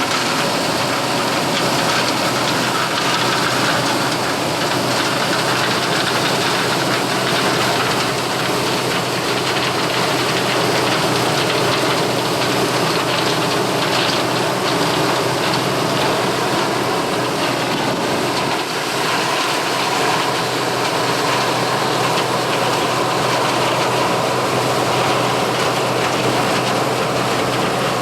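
1983 Gleaner L3 combine running steadily while harvesting corn: its turbocharged six-cylinder Allis-Chalmers diesel and threshing machinery make a dense, even noise.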